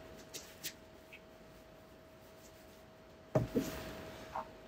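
Small clicks of objects being handled on a table, then a sharper knock a little over three seconds in, over a faint steady hum.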